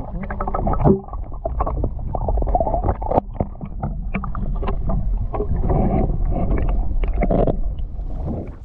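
Water sloshing and gurgling around a submerged camera, muffled, with many sharp clicks and knocks, as a redfish is let go from a fish grip and swims off.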